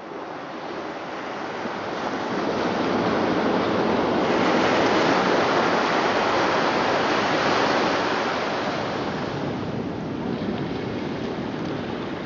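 Ocean surf: a steady rush of waves that swells over the first few seconds, is loudest around the middle, and eases off somewhat toward the end.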